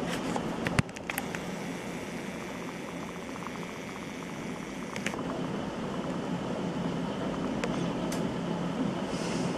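Thunderstorm downpour: a steady rush of heavy rain with scattered sharp clicks, and a louder knock about a second in.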